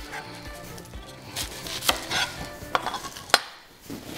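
A kitchen knife knocking on a cutting board as an onion is sliced, about five sharp knocks at uneven intervals.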